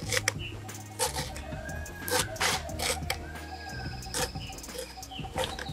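Knife cutting through a banana flower held in the hand, a string of short, irregular crunchy cuts as the pieces drop into an aluminium pot. A bird calls twice in the background.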